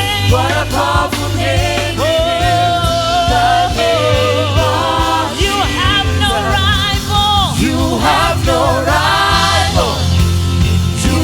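Gospel worship music with group singing: voices holding long notes with vibrato over a steady bass.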